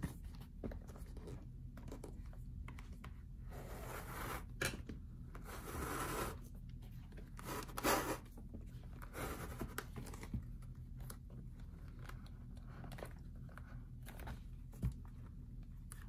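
Leather lace being pulled through the lacing holes of a Rawlings baseball glove's web, in a series of soft rasping strokes with small clicks, with the glove's leather rubbing under the hands as it is turned. The loudest pull comes about eight seconds in.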